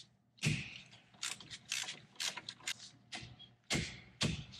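Ratchet wrench loosening the 13 mm bolts on a Jeep Wrangler TJ front brake caliper: a run of sharp metallic clicks and knocks, with heavier knocks about half a second in and near the end.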